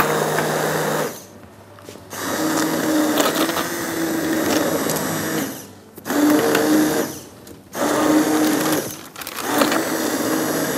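Hand-held immersion blender puréeing onion soup in a pot. It runs in about five bursts of one to three seconds with short pauses between them, and its motor note changes from one burst to the next.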